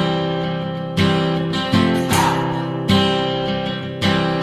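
Acoustic guitar strumming chords without singing, a fresh strum about once a second, each chord left ringing.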